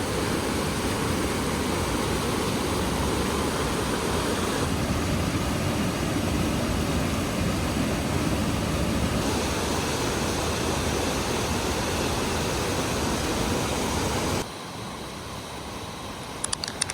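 Desert waterfall running in full flood after days of heavy rain: a steady, dense rush of falling water. About fourteen and a half seconds in it drops abruptly to a quieter, duller rush, with a few sharp clicks near the end.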